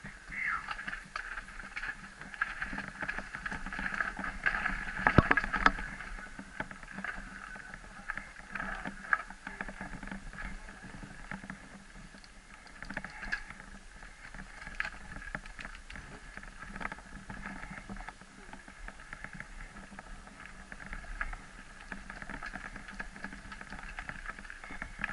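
Mountain bike riding down a dirt singletrack: a steady high buzz of rolling tyres and bike, with frequent clicks and rattles over bumps and a sharp knock about five seconds in.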